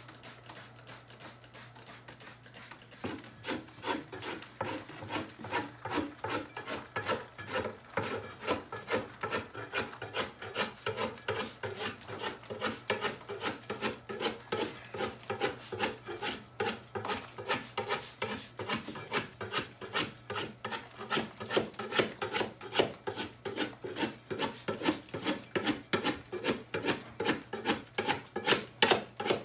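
A hand scraper being dragged across a damp popcorn ceiling texture, scraping it off in quick repeated strokes, about two a second. The strokes start about three seconds in and get louder toward the end.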